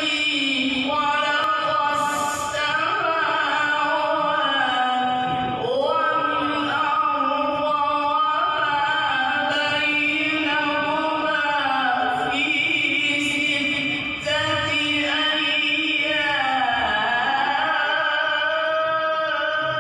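A man's solo melodic Quran recitation (qirat) in maqam Saba: long, ornamented phrases held on the breath, with a brief break about fourteen seconds in.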